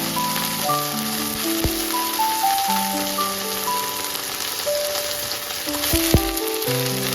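Food sizzling as it stir-fries in oil in a frying pan, a steady hiss, with a sharp knock about six seconds in. Background music with a simple melody plays over it.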